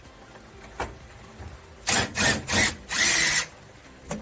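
Power drill run in four short bursts, the last the longest, with light clicks before and after.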